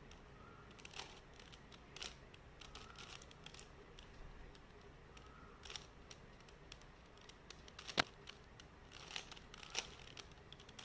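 3x3 Rubik's cube being turned by hand: faint, irregular plastic clicks and scraping as its layers rotate, with one sharper click about eight seconds in.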